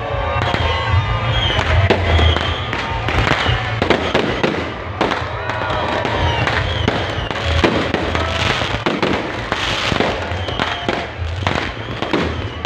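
Fireworks going off in a rapid, irregular string of bangs, with music and voices underneath.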